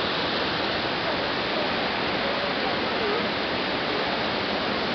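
Steady rush of water flowing over rocks in a stream, with faint voices now and then.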